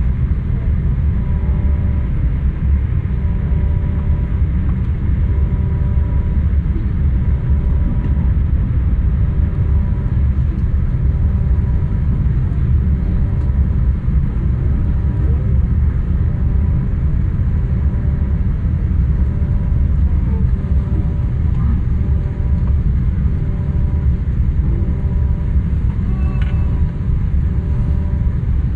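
Jet airliner cabin noise in flight: the steady, loud low rumble of the engines and rushing air, with faint steady hums above it.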